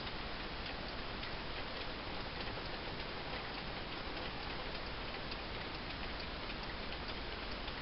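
Pendulum wall clock ticking: faint, short ticks over a steady hiss.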